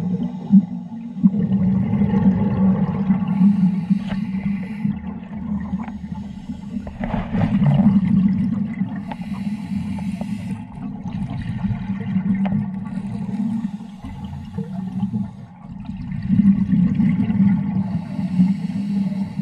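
Underwater sound through a dive camera's housing: a scuba diver breathing on a regulator, with rushes of exhaled bubbles every few seconds over a steady low hum.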